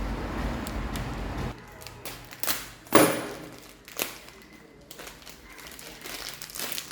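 Hands handling a packet of jewellery chain: a noisy rustle, then a few sharp taps and clicks, the loudest about three seconds in.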